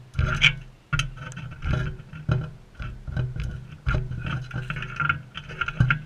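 Sulphur-crested cockatoos feeding from a dish close to the microphone: irregular clicks and knocks of their beaks pecking against the dish, with scraping in between.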